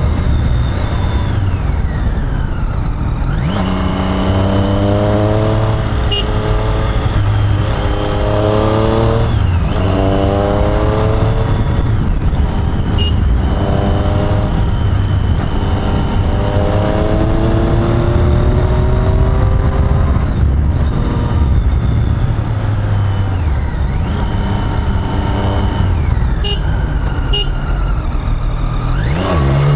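Triumph Street Triple's three-cylinder engine accelerating hard up through the gears, its pitch climbing again and again and dropping at each shift, with wind rush underneath. The engine note falls away near the start and again a few seconds before the end, as the bike slows for bends, then climbs once more.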